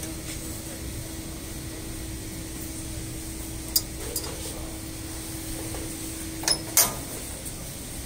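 Sharp metallic clicks and clacks from the stainless steel muffle furnace's door and casing being handled: two about halfway through, then a louder close pair near the end, over a steady low hum.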